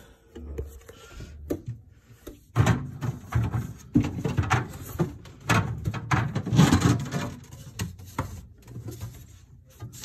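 Handling noise: irregular knocks, clatter and rubbing as the door and plastic door shelves of a mini fridge are handled.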